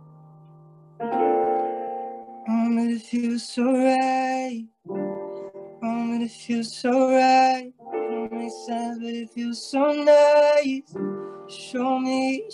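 Soft piano chords played on a keyboard, with a light male voice singing a slow melody over them in short phrases. A held chord fades at the start, a new chord comes in about a second in, and the singing begins a little later.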